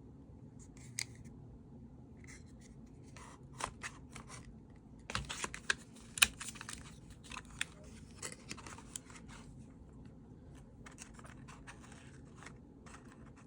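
Packaging being handled during an unboxing: scattered short scrapes, rubs and clicks, busiest in the middle and again near the end, with one sharp click about six seconds in.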